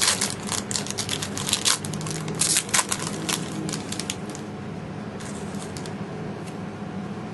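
Foil trading-card pack being ripped open and crinkled in hand: a run of sharp crackles and tearing for about the first four seconds, then only a few faint crinkles.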